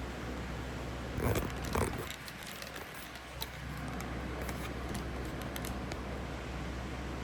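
Handling noises: two short rustling knocks about a second and a half in, then a few light clicks, over a steady low hum.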